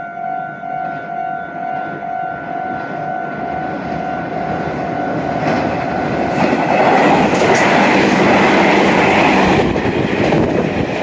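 A pulsing electronic warning tone sounds at first, then a Meitetsu Nagoya Main Line electric train comes in close. Its noise swells to a loud peak about seven seconds in, with the wheels clacking over the rail joints.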